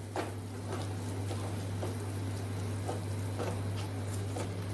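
Wooden spatula stirring and scraping a thick masala paste in a nonstick kadai: soft, irregular scrapes and light taps over a faint sizzle, with a steady low hum underneath. The paste is being sautéed until its raw smell cooks off.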